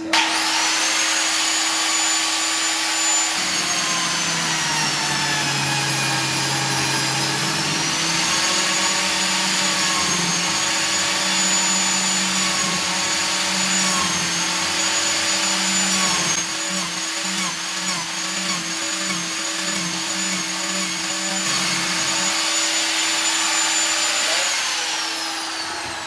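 Biscuit jointer switched on and running noisily with a high whine. It is plunged into the timber and drawn along to cut a wide slot, its pitch dipping and wavering under load, then switched off and winding down near the end. A workshop vacuum used for dust extraction hums steadily underneath.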